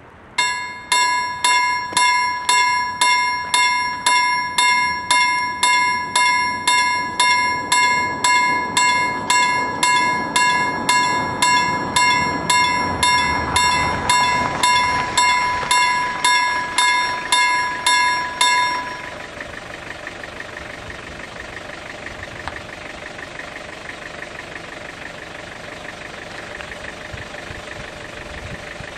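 Level-crossing warning bell ringing with evenly spaced strokes, about one and a half a second, signalling an approaching train while the barrier arms come down. It stops about two-thirds of the way through, once the barriers are lowered, leaving a steady, quieter background noise.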